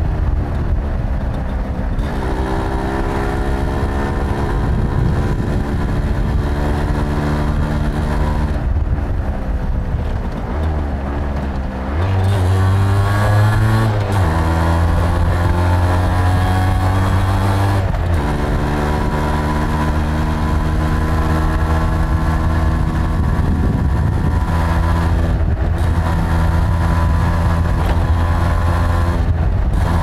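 Suzuki AX100's two-stroke single-cylinder engine and exhaust under way, heard from the rider's seat. The engine note climbs and drops several times as the bike accelerates through the gears, sags while easing off near the middle, then picks up sharply again.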